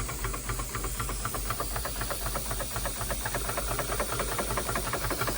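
Wilesco D32 model steam engine running under steam, with a steady hiss of steam and a fast, even chuffing beat from the engine.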